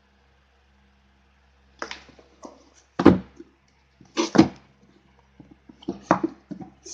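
A paper bill and a cardboard shipping box being handled and set down on a table: a string of knocks and short scuffs starting about two seconds in, the loudest just after three seconds and again just after four.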